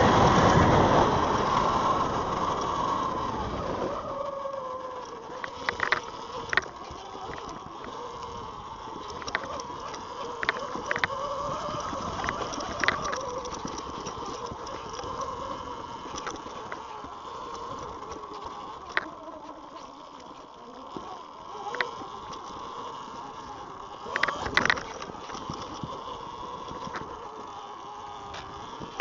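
E-Ride Pro SS 3.0 electric dirt bike being ridden: wind rushing over the microphone dies away within the first few seconds, leaving a faint motor whine that rises and falls with speed, with scattered clicks and knocks from the bike over the trail.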